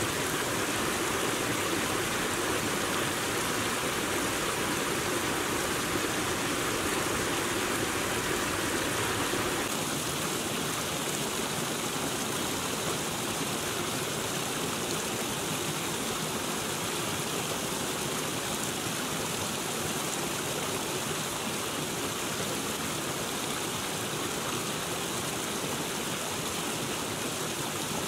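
Small hill stream tumbling over rocks in a little waterfall: a steady rush of running water that shifts slightly in tone about ten seconds in.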